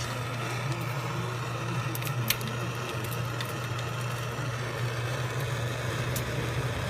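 Propane torch flame burning with a steady hiss as it heats a differential bearing, a few light metal clicks over it.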